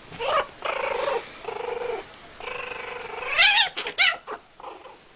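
Kitten meowing while play-fighting: four drawn-out mews, the last one rising in pitch, then a quick run of short, sharp cries.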